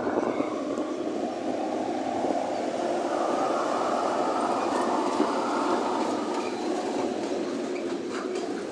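Diesel-hauled freight train passing close by: the blue ČD Cargo locomotive goes past in the first few seconds, then flat wagons loaded with steel pipes roll by with a steady rumble of wheels and rail clatter.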